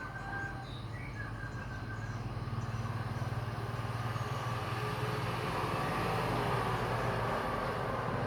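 A vehicle's engine and road noise, growing slowly louder as it approaches, with a few bird chirps near the start.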